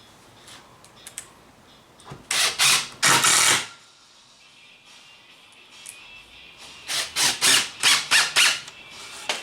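Cordless impact driver driving screws into wood: two longer runs, then a string of about six short pulses as the screws are seated.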